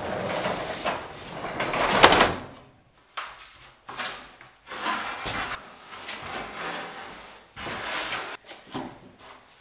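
A rushing noise swells and peaks about two seconds in, then stops; after that a large plywood sheet is slid and scraped across a wooden workbench top in several separate strokes, with knocks of wood on wood.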